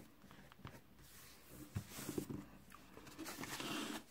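Soft paper handling: hands pressing and smoothing a sheet of paper onto cardstock with light taps, then a longer sliding rustle of card sheets about three seconds in.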